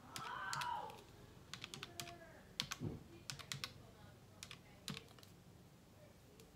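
Plastic keys of a desktop calculator tapped with a pen tip: a run of short, irregular clicks as figures are entered. A brief voice-like sound comes in the first second.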